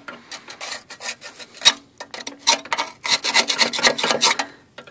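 Rubbing and scraping by hand: a series of short scraping strokes, one loud stroke early, then a quick dense run that stops shortly before the end.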